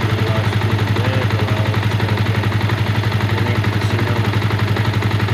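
Yamaha Vixion motorcycle's single-cylinder four-stroke engine idling steadily with an even, rapid pulsing beat. This is the engine noise ("brisik", noisy) that the owner is complaining about.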